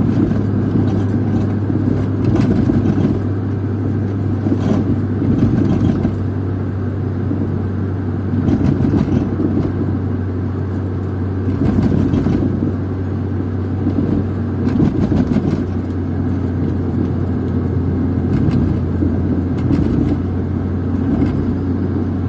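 A car being driven, heard from inside the cabin: a steady low engine hum under road noise, swelling a little every few seconds.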